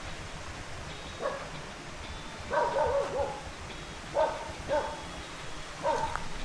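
A dog barking: single yaps with a quick run of three or four a little after two seconds in, over a steady rush of running water.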